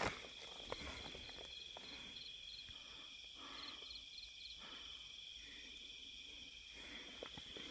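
Crickets in a night chorus: a steady, high, unbroken trill, with short runs of four or five quick chirps twice. Soft rustling and clicks of fabric near the start.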